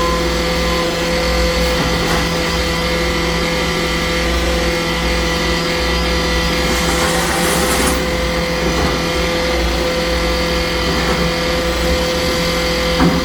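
Heavy road-construction machinery engine running steadily, with a brief hiss about seven seconds in.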